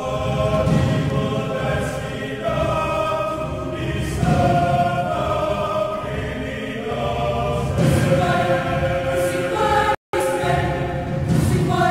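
Mixed choir of women's and men's voices singing slow, sustained chords under a conductor. The sound cuts out for an instant about ten seconds in.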